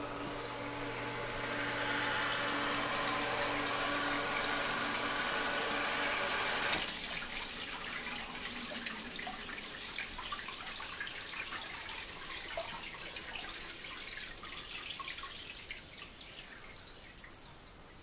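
Small electric water pumps running with a steady hum, pouring water from the outer tub into the inner tub. About seven seconds in the pump hum cuts off with a click, and the water goes on splashing and trickling, slowly fading.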